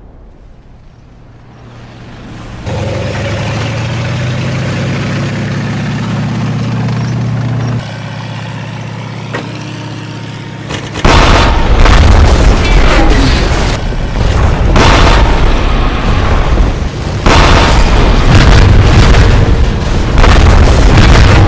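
Battlefield explosion sound effects. A low rumbling drone starts a few seconds in, then about halfway through gives way to a loud, rapid series of booms and blasts that keeps going, as tanks are hit and blown up.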